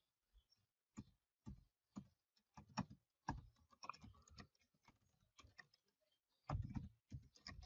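Faint, irregular keystrokes on a computer keyboard as text is typed, with a quicker run of keys near the end.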